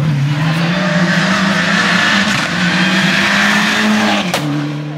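Mitsubishi Lancer Evolution rally car's turbocharged four-cylinder engine pulling hard as the car passes close on wet tarmac, its note rising in pitch over a loud hiss of tyres and spray. About four seconds in comes a sharp crack, and the engine note drops lower.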